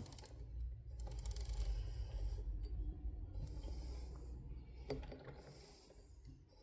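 Hamilton sewing machine's internal mechanism turned slowly by the hand wheel: soft rubbing of the moving parts with a couple of light clicks, about a second in and near five seconds. The action is smooth, though the owner thinks it could do with a little oil.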